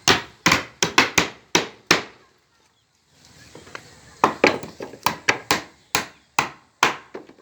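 Hammer blows on roof centring (shuttering) work, a quick run of sharp strikes about three a second. The strikes stop briefly about two seconds in, then start again.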